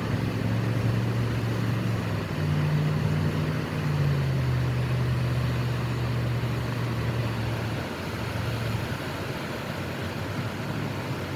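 A motor vehicle engine running with a low hum whose pitch steps up and down a couple of times, then fades out about eight seconds in, over a steady rushing noise.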